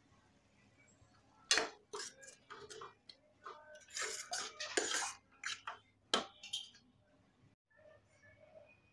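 Steel spatula scraping and clinking against a cooking pan, an irregular run of knocks and scrapes as prawn curry is scooped out into a serving bowl. It starts about a second and a half in and stops after about six and a half seconds.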